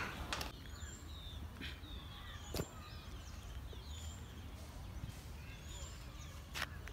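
Small birds calling, many short high chirps and whistles, with a few sharp clicks about half a second in, near the middle and near the end, over a low steady rumble.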